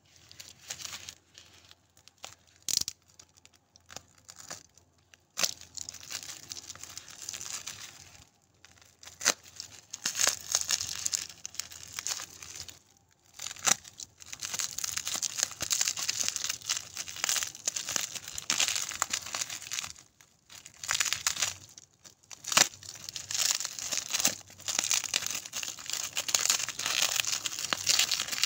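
Irregular crinkling and rustling of something being handled close by, with a few sharp clicks, growing denser and louder from about a third of the way in.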